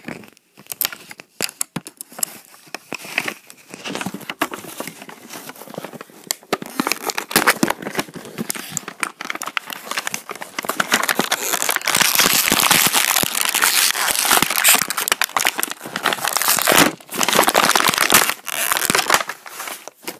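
Crinkly plastic packaging being crumpled and torn as a stuck toy launcher is worked free of it: a dense run of crackles and rustles that grows louder past the middle.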